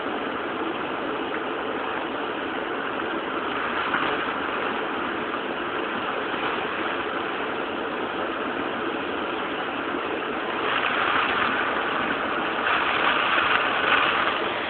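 Steady rush of storm wind and rain, swelling in gusts about four seconds in and twice more near the end.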